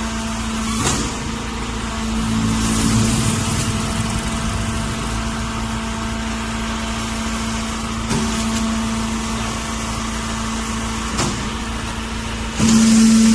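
Hydraulic silage baling press running with a steady hum. The noise grows louder about two seconds in and again near the end, with a few short knocks in between.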